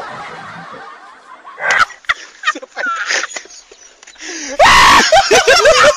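A man's high, wailing laughter in repeated bursts, starting about two seconds in and loudest near the end.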